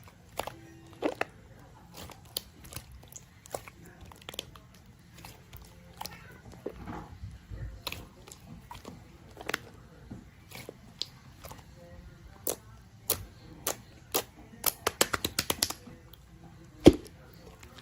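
Slime being kneaded and pressed by hand, giving off sharp sticky clicks and small air-bubble pops, with a quick rapid run of pops about three-quarters of the way through and one louder pop near the end.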